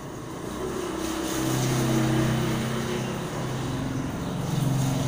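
Small motorcycle or motor scooter engine running as it approaches and passes close by, growing louder, over a steady hiss of falling rain.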